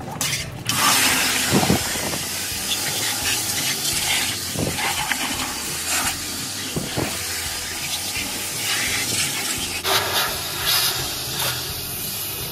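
High-pressure water spray rushing onto washing-machine parts in a steady hiss, starting about a second in, with a few knocks along the way.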